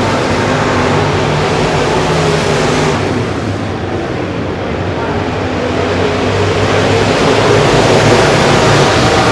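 A pack of IMCA Modified dirt-track race cars running, their V8 engines sounding together. The sound dips a few seconds in, then swells near the end as a car passes close.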